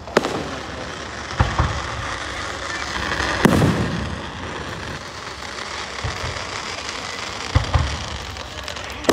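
Fireworks display: aerial shells bursting with several sharp bangs, the loudest about three and a half seconds in with a rumbling tail. Between the bangs there is a steady crackling haze.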